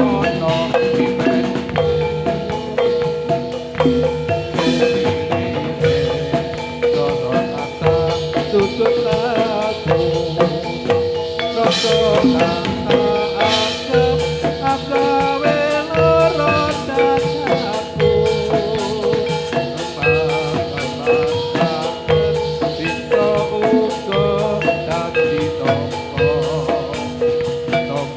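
Instrumental gamelan-style music: metal mallet instruments playing a steadily repeating pattern over drum beats, the accompaniment to a gedruk dance.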